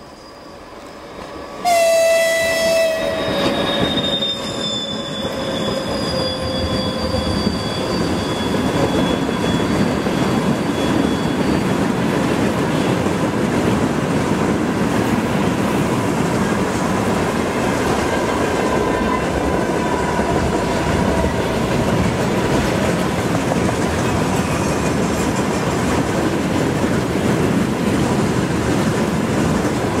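A train horn sounds about two seconds in, one blast whose pitch slowly drops, then a train passes close by with a steady loud rumble and the clatter of wheels on the rails.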